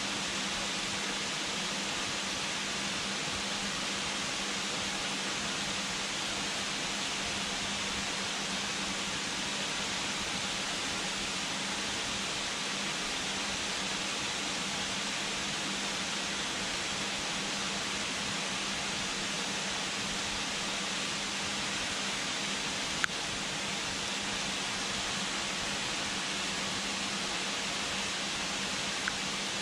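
Steady, even rush of a waterfall falling into a rock pool, with a single short click a little over twenty seconds in.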